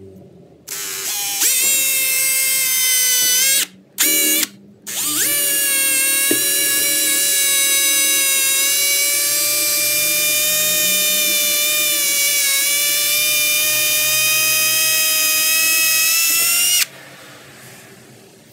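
Cordless drill drilling a small hole into a fuel tank: a loud, steady motor whine that starts under a second in. It cuts out twice briefly around four to five seconds, then runs on evenly and stops suddenly near the end.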